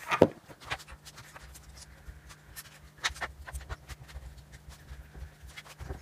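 A sharp knock as a camera is set down on a countertop, then scattered light clicks and taps of hands fitting an aluminium headlight bracket onto a road bike's handlebars, over a low steady hum.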